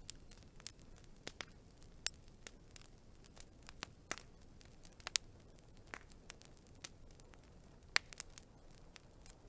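Wood fire crackling: sharp pops and snaps at irregular intervals, about two a second, over a faint low hiss.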